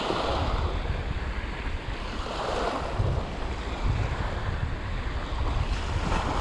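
Small waves lapping and washing up on a sandy shore, swelling a few times, with wind rumbling on the microphone.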